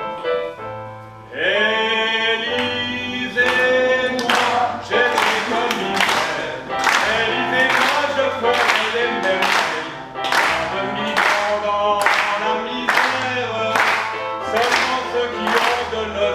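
Male singing over a recorded backing track with a bass line, on long held notes. From about three seconds in, a sharp regular beat comes in a little under twice a second.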